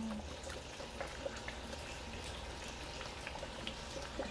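Thick tomato spaghetti sauce simmering in a steel wok over a gas burner: faint steady bubbling with scattered soft pops.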